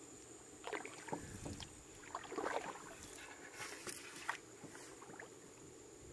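Canoe being paddled through still swamp water: a few soft paddle splashes and light knocks against the hull, irregularly spaced, over a steady faint high-pitched hum.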